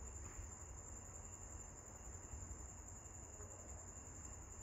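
Faint background noise: a steady high-pitched whine with a low hum beneath it, and no distinct event.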